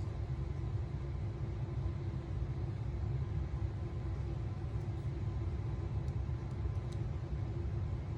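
A steady low rumble with a faint hum running under it, and a few faint light clicks.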